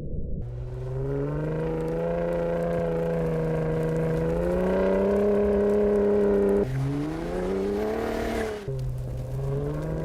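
Ford F-150 Raptor's twin-turbo 3.5-litre EcoBoost V6 accelerating hard, its pitch climbing and then dropping back suddenly several times, like a run up through the gears.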